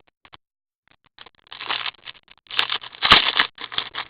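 Trading-card pack wrapper being torn and crinkled open by hand. The crackling starts about a second in and grows louder in uneven bursts, with sharp clicks. The wrapper is tough to open.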